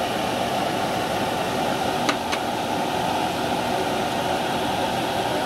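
Steady whooshing noise, with two light clicks close together about two seconds in.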